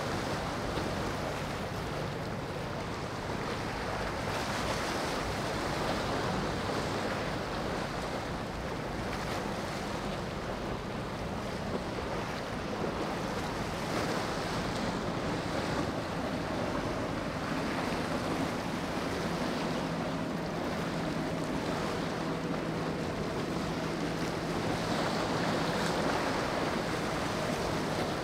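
Surf washing against a rock jetty with wind buffeting the microphone, a steady rushing noise. A faint low engine hum joins in about halfway through.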